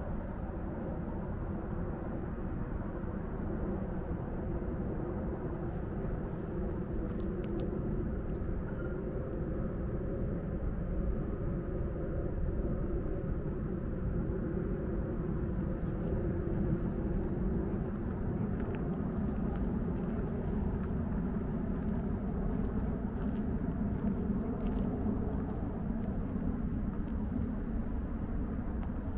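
Steady low hum of distant city traffic, with a faint engine drone that slowly wavers in pitch.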